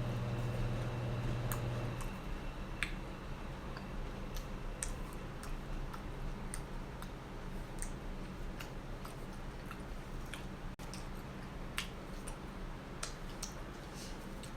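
Eating sounds from chewing nachos: faint chewing with scattered small crunches and mouth clicks. A low steady hum stops about two seconds in.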